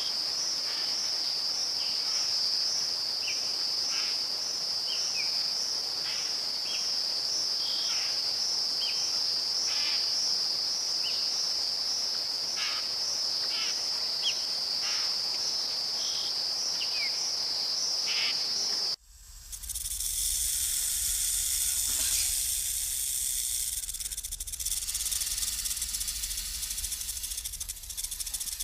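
Rainforest night-chorus ambience: a steady, pulsing high-pitched insect trill with scattered short chirps. About two-thirds of the way through it cuts abruptly to a loud, steady hiss with a low rumble.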